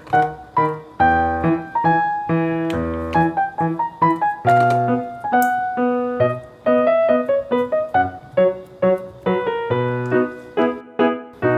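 Background music: a piano-style keyboard tune of many short, quick notes over lower bass notes.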